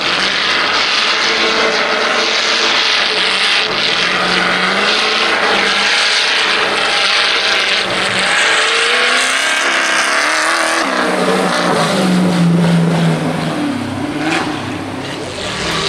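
Off-road race buggy's engine worked hard at high revs as it is driven through snow, its pitch climbing about two-thirds of the way through and then shifting with the throttle.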